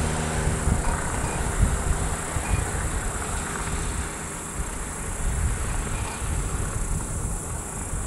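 Wind buffeting the microphone in uneven low gusts, with the thin, insect-like buzz of a radio-controlled model Cessna 150 flying overhead.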